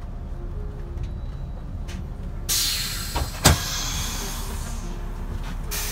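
Tour bus idling with a low rumble. About two and a half seconds in, its compressed-air system lets out a loud hiss that fades away, a sharp clunk follows about a second later, and a short hiss comes again near the end.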